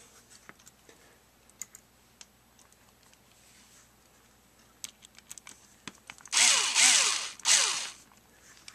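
Cordless drill with a screwdriver bit driving a small screw into a carburetor body: two short runs of the motor about six and seven and a half seconds in, its pitch falling as the screw loads it, after a few light clicks of small parts being handled.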